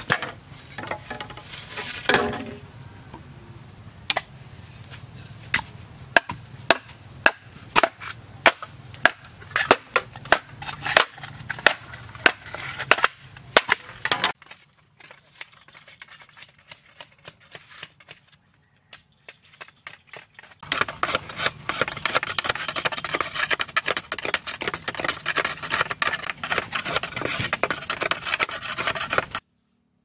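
Machete chopping bamboo: a long run of sharp chops that come faster and faster. After a quieter stretch with light taps comes a dense run of rapid crackling and scraping as bamboo is split, which stops abruptly near the end.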